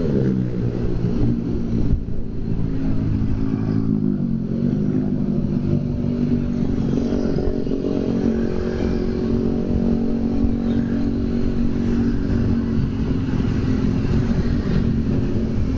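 Motorcycle engine running while the bike rides slowly in traffic, with wind and road noise. Its pitch falls over the first four seconds or so as it slows, then holds steady.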